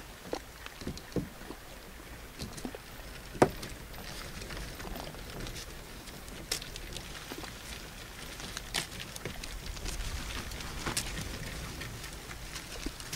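Kayaks and their gear being readied on a wheeled kayak cart on asphalt: scattered clicks and knocks of fittings and gear being handled, with one sharp knock about three and a half seconds in. A low rumble runs underneath and grows louder in the second half.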